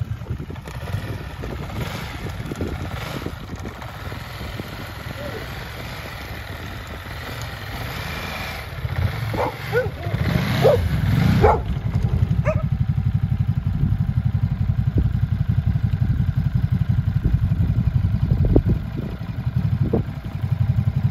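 Ducati motorcycle engine running as the rear tyre spins and churns in snow, with a dog barking a few times about ten seconds in. From about twelve seconds the engine settles into a steady, evenly pulsing low-speed run as the bike rolls slowly over packed snow.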